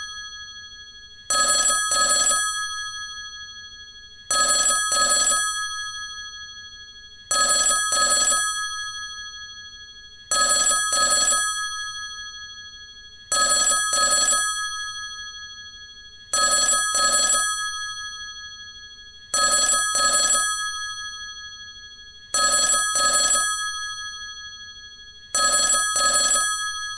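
A bell-like ring sounding in pairs of short rings, one pair about every three seconds, each pair fading out slowly.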